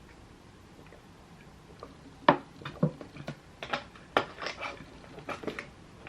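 Makeup compacts and containers being handled: a string of irregular sharp clicks and taps starting about two seconds in.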